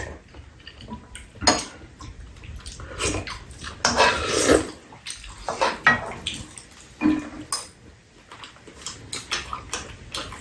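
Metal spoons clinking and scraping against bowls and a pan during a meal, with soup sipped from the spoons in between.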